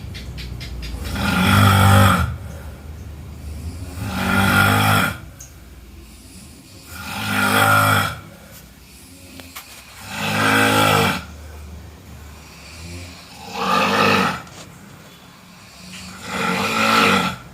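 A person snoring in a steady rhythm: six loud snores, each about a second long, coming about every three seconds, with quieter breathing between them.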